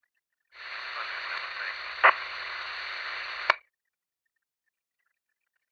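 Police radio handset opening with a burst of static hiss, with no clear speech, a sharp click about two seconds in, and a squelch click as the transmission cuts off suddenly at about three and a half seconds.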